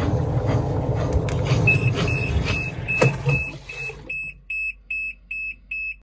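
Sphere top-loading washing machine spinning down: motor and drum noise with a couple of knocks, fading out about four seconds in. The machine beeps over and over at a high pitch, about three beeps a second, louder once the spinning stops.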